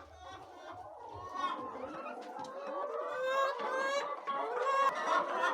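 A flock of laying hens clucking, with many calls overlapping, growing louder toward the end.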